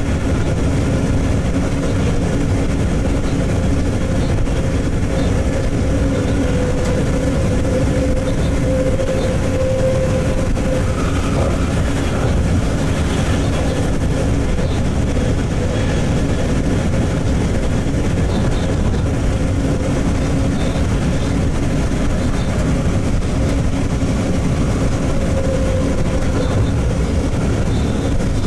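Freight train locomotive running at speed, heard from the cab: a steady rumble of wheels on track under a constant hum from the locomotive.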